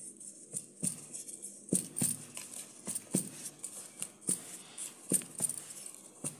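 Aluminium cake tin full of batter being tapped down repeatedly on a cloth-covered surface: short, soft knocks about twice a second, unevenly spaced, settling the batter before baking.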